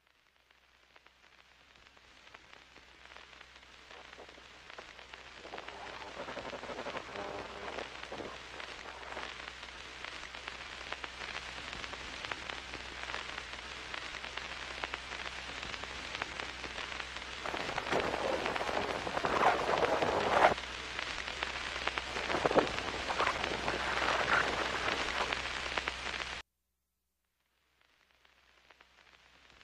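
Film projector sound effect: a steady low hum under a dense clatter and crackle. It fades in, grows louder after the middle, cuts off abruptly a few seconds before the end, then fades back in.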